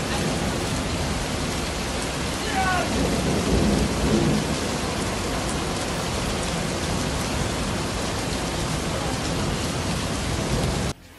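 Heavy rain and strong wind in a storm over a flash flood: a dense, steady rush of noise with low rumbling under it.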